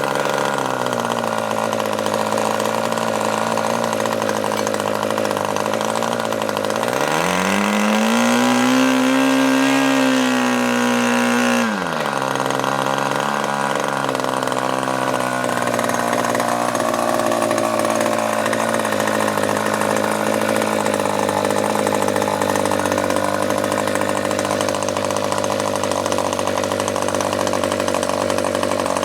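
Rebuilt OS MAX 40 two-stroke glow model engine running steadily at high revs. About seven seconds in, the revs climb and hold for a few seconds, then drop back suddenly.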